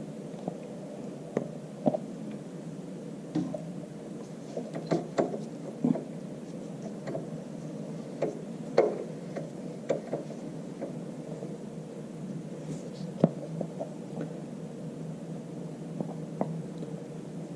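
Scattered light clicks and knocks of metal parts being handled as oil is worked into a tractor power take-off bearing by turning it, over a steady background hum.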